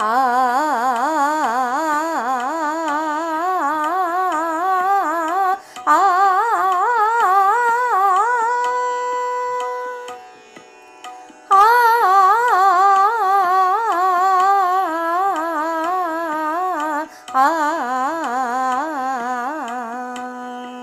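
A singer sings a Raag Bhairav six-note alankaar (pattern 1-2-3-1-3-3) on the vowel 'aa' over a steady drone. The voice climbs through the pattern to upper Sa and holds it, then after a short break comes back down to lower Sa and holds it near the end.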